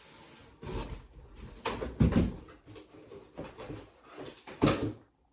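Cardboard and packing rustling, with several irregular knocks and scrapes, as a heavy metal animatronic torso piece is pulled from its box. The loudest handling sounds come about two seconds in and again near the end.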